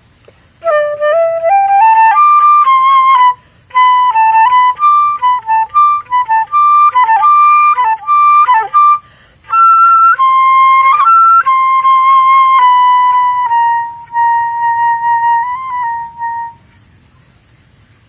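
Solo flute improvising. It opens on a rising line of notes, moves into quick, ornamented phrases, breaks off briefly about nine seconds in, then plays a few more phrases and settles on a long held note that fades out near the end.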